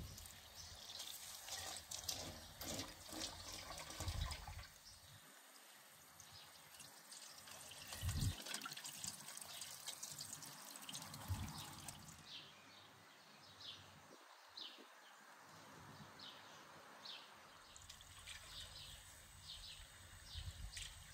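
Faint trickling and dripping of water, with scattered small clicks and splashes.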